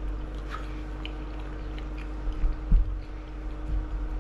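A person chewing a mouthful of chicken close to the microphone, with soft low thumps of the jaw, loudest a little after halfway through.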